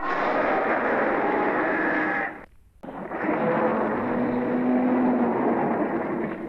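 Two long, harsh, raspy vocal growls, one after the other with a short break between them.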